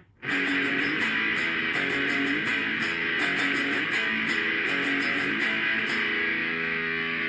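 Electric guitar played through one of the Zoom G1X Four multi-effects pedal's preset patches. It comes in about a quarter second in after a short gap, strummed chords, and ends on a held, ringing chord.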